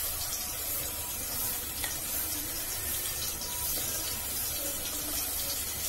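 Steady, gentle sizzling of sautéed onion and tomato in oil in a pot, with one faint tap about two seconds in as spice powder is added.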